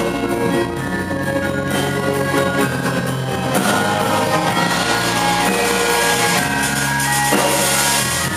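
Live ensemble music: gamelan metallophones and kettle gongs ringing in interlocking patterns over a rock drum kit and electric bass.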